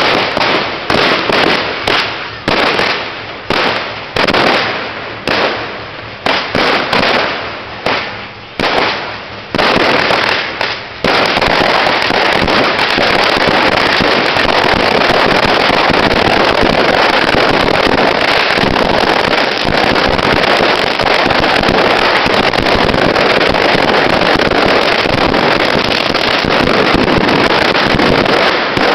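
Firecrackers going off: loud separate bangs, each ringing off, at roughly two a second, then about eleven seconds in a string of firecrackers sets off a continuous dense rattle that runs on.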